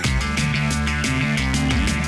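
Background instrumental music with a steady beat, which gets louder right at the start.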